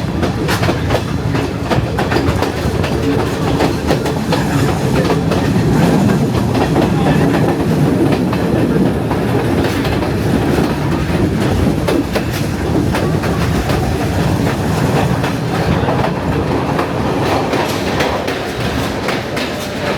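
Sri Lankan hill-country passenger train heard from on board, running steadily with a continuous rumble and the irregular clickety-clack of wheels over rail joints.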